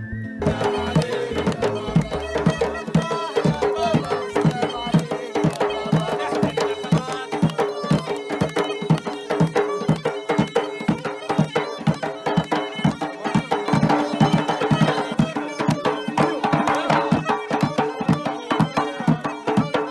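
Folk-style background music with a fast, steady hand-drum beat and a melody over a held drone; the piece starts right at the beginning.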